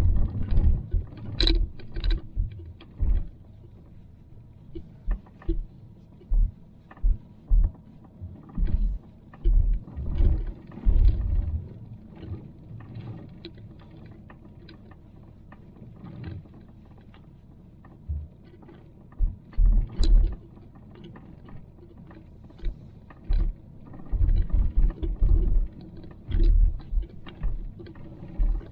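Inside the cabin of a Škoda Karoq driving slowly over a rutted, bumpy dirt field track: irregular heavy thuds from the suspension and tyres taking the bumps, mixed with light ticks and creaks from the car's body and interior. Around the middle the ride goes smoother and quieter for several seconds.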